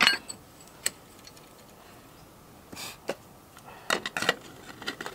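Scattered metal clinks and knocks of tools and front strut parts being handled, a sharp clank at the start and a quick cluster of knocks about four seconds in, with quiet gaps between.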